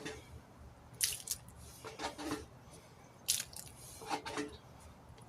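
Small plastic container scooping and scraping water and grit out of a corroded tire and rim: wet scraping strokes about once a second, some ending in a short squeak.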